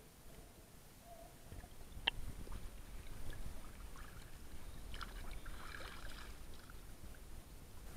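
Muffled sloshing and lapping of seawater around an action camera sealed in its waterproof housing at the water's surface, as a low steady rumble, with one sharp knock about two seconds in.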